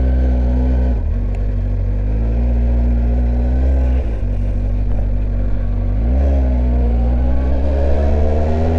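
Honda CBF1000's inline-four engine pulling on the road, its pitch climbing steadily in each gear with brief dips at gear changes about one, four and six seconds in.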